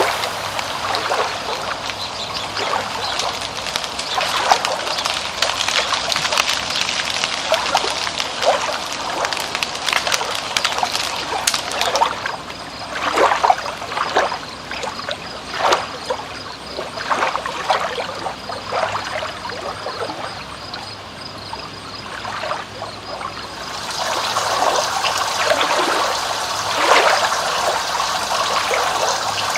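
Water trickling and splashing, many small drops and spatters over a steady wash. It thins out through the middle and grows fuller again after about twenty-four seconds.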